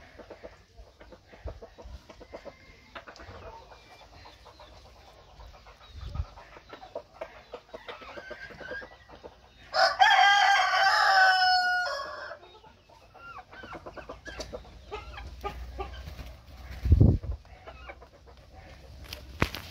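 A rooster crows once, about ten seconds in, a call of about two seconds that steps down in pitch at the end, among soft clucking and pecking from hens. A short low thump comes about seventeen seconds in.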